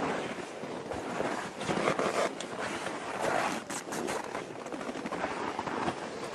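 Wind rushing over the microphone, mixed with rustling and scraping as the camera brushes against a climber's down suit and pack, with a few sharper scuffs about four seconds in.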